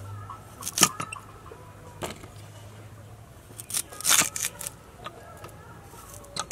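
Elephant foot yam being cut on a boti, a fixed upright curved blade: a series of short, sharp crunchy cuts at uneven intervals as pieces are pushed through the blade.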